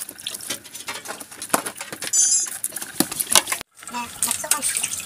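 Hands cleaning small fresh-caught fish in a plastic basin of water: irregular clicks, knocks and small wet splashes as the fish are rubbed and rinsed. The sound breaks off for an instant a little past halfway.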